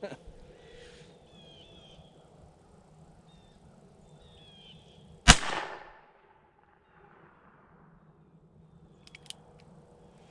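A single gunshot from a Heritage Rough Rider single-action .22 revolver firing a .22 Magnum (WMR) round, a sharp crack about five seconds in with a short echoing tail. Faint clicks follow near the end.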